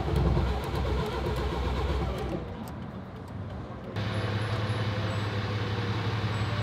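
Vehicle noise: an uneven low rumble, then after an abrupt change about four seconds in, a steady low engine hum, the tow truck running with the broken-down Toyota Prius loaded on its wheel lift.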